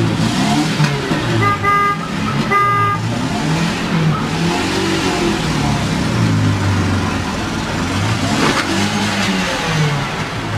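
Car engine running, its pitch rising and falling as it speeds up and slows down, with two short car-horn beeps about one and a half and two and a half seconds in.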